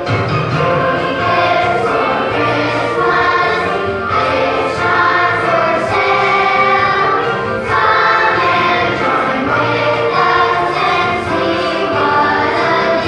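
Children's choir singing a Christmas song about a 'free gift' over instrumental accompaniment with a steady bass line.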